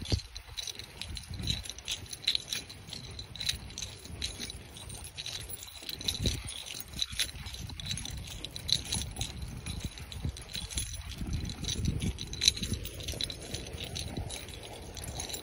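Small metal parts jingling and rattling in quick, irregular clinks, in step with a handler and a dog on a tracking lead moving across grass, over a low rumble.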